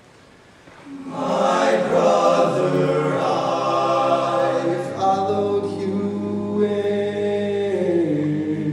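All-male a cappella group singing sustained chords in close harmony, coming in loud about a second in after a brief hush, with a chord change about five seconds in.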